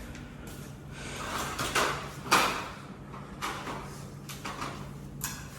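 Tissue wiped across the LCD panel's bonding area in several short rubbing strokes, drying off the cleaning alcohol, over a steady low hum.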